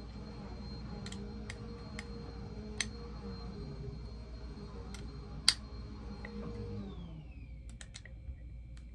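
Scattered light clicks and taps of a plastic bobblehead and its cardboard box being handled, with one sharper click about five and a half seconds in. Under them a steady low hum drops away about seven seconds in.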